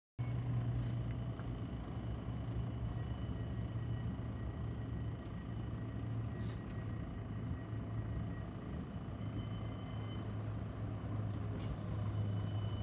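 CAF Urbos 100 tram standing at a platform, its on-board equipment giving a steady low hum with a faint high whine. A brief high tone sounds about nine seconds in.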